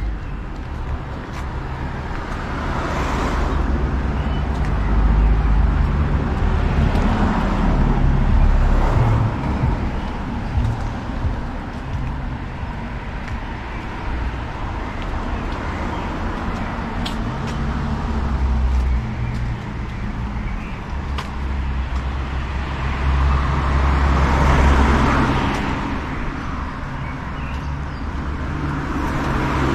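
Road traffic: a steady low rumble, with vehicles passing that swell and fade several times.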